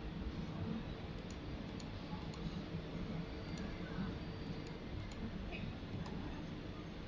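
Computer mouse buttons clicking while dialogs are worked on screen: about a dozen sharp clicks, several in quick pairs, over a steady low background hum.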